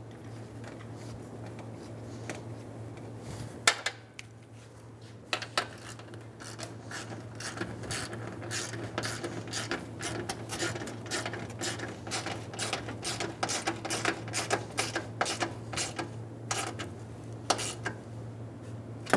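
Hand ratchet with an extension, tightening a bolt: a couple of sharp metal knocks, then a run of quick ratcheting clicks lasting about ten seconds.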